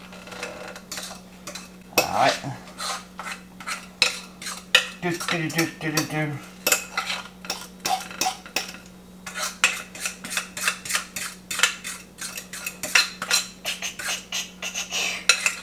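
Metal fork scraping and clinking against the inside of a glass mixing bowl, many quick strokes, as cake batter is scraped out into a glass baking dish.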